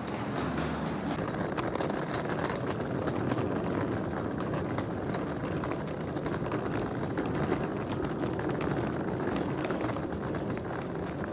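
American Tourister hard-shell suitcase's wheels rolling over rough pavement, a steady gritty rumble with many small rattling ticks.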